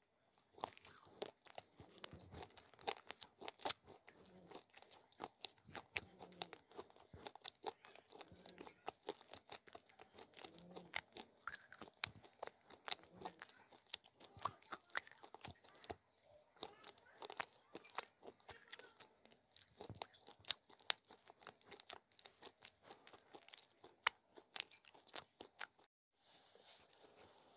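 Close-miked crunching and chewing of hard baked clay (mitti cookies and slate pencil pieces) in the mouth: a dense, irregular run of sharp cracks and grinding crunches. The crunching stops near the end, leaving a soft hiss.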